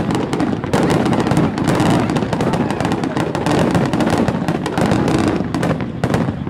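Aerial fireworks shells bursting in a rapid, continuous barrage close by: many overlapping loud bangs and sharp reports with a deep rumble beneath.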